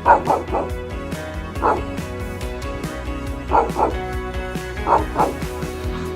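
A dog giving short, high yips, mostly in quick pairs, four times over, with background music playing under them.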